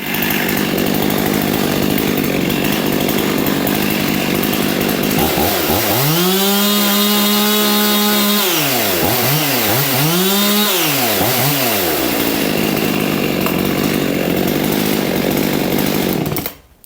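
Husqvarna 55 two-stroke chainsaw, a closed-port engine with its base gasket deleted, idling, then revved to full throttle and held for about two seconds, blipped twice more, and settling back to idle before being shut off near the end.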